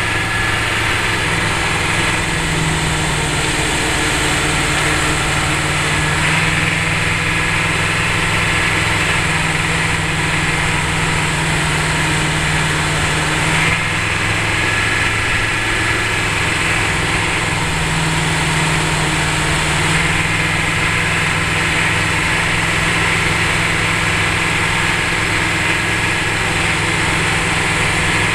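Vehicle engine and road noise heard from inside the cab while driving: a steady, loud low drone whose pitch shifts slightly now and then.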